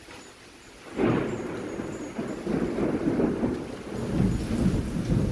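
A thunderclap breaks suddenly about a second in and rumbles on over the hiss of monsoon rain.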